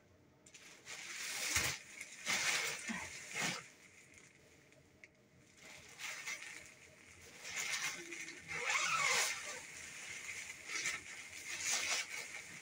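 Thin plastic bags and a clear plastic garment cover rustling and crinkling in irregular bursts as clothes are pulled out and handled, with quieter pauses between handfuls.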